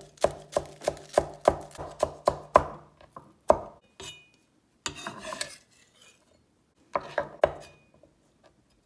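A Chinese cleaver chops green onion on a plastic cutting board in steady knocks, about three a second. After that comes one louder knock, a stretch of scraping as the slices are gathered, and two more knocks near the end.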